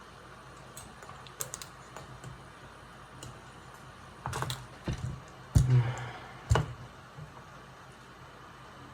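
Light clicks and taps of tools and phone parts being handled on a repair bench, with a few louder knocks about four to seven seconds in, over a steady low hum.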